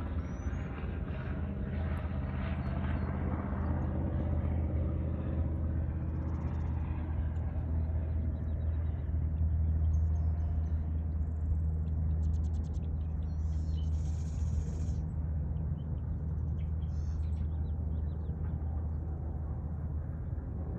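A steady low engine rumble, with a few faint high chirps from a bird about halfway through.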